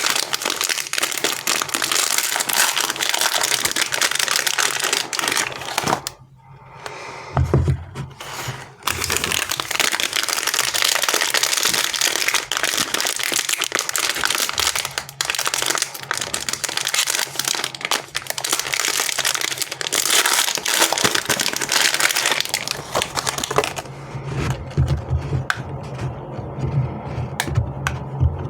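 Candy and chocolate wrappers crinkling and crackling as they are handled and unwrapped, a dense run of small crackles. It breaks off briefly about six seconds in, and a low thump follows soon after.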